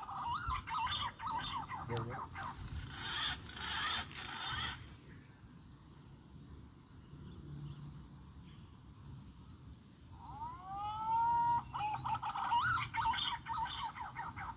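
A bird calling: a rising, curving call followed by a run of quick chirping notes, at the start and again about ten seconds in, with a quieter stretch between.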